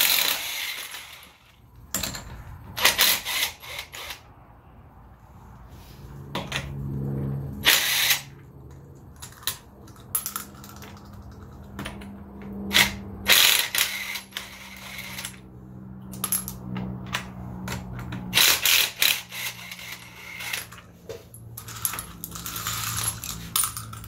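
Cordless electric impact wrench with a 21 mm socket hammering lug nuts loose on a car's front wheel, in about a dozen short bursts with pauses between.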